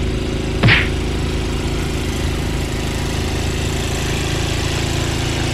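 Snowblower engine running steadily as it clears snow, with one short sharp hit, the loudest sound, just under a second in.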